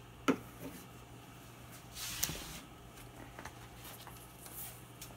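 Hand-handling sounds of gluing and taping workpieces down on a CNC bed: a sharp click just after the start, a brief rustling hiss about two seconds in, and a few faint taps, over a low steady hum.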